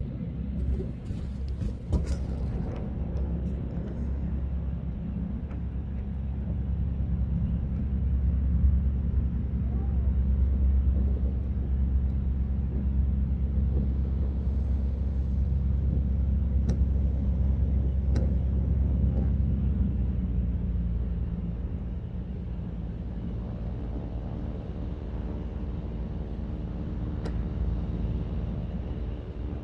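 Aircraft passing overhead: a low rumble that swells for several seconds, holds, then fades away, leaving a steadier hum near the end.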